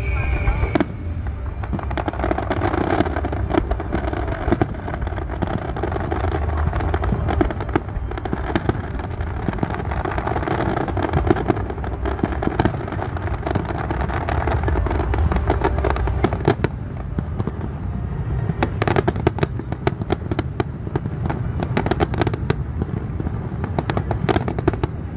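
Fireworks display: continuous low booming with sharp cracks and crackling bursts, growing denser near the end, with music playing alongside. A falling whistle ends just under a second in.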